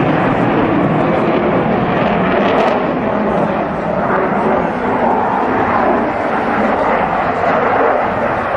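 Steady, loud jet noise from a General Dynamics F-16 Fighting Falcon flying its display.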